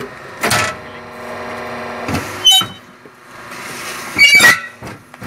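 Fly ash brick making machine running: a steady motor hum, broken by several loud bursts of metallic rattling and clanking, the longest and loudest about four seconds in, as a pallet of freshly pressed bricks is cycled out from under the mould.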